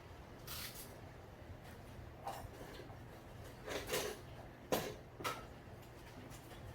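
About five short knocks and scrapes from door-repair work, the sharpest a click about two thirds of the way through.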